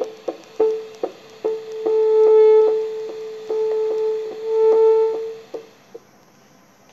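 Veterinary Doppler (Vet-Dop2) playing a cat's pulse through its speaker: quick, even beats about three a second over a steady pitched hum. The sound swells and fades, then drops away about six seconds in.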